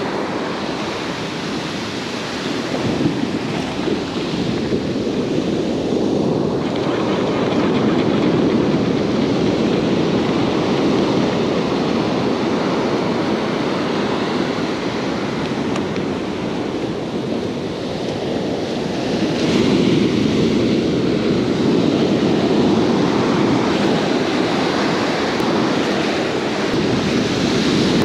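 Ocean surf breaking and washing up a sandy beach, a steady rush that swells louder in slow surges as waves come in.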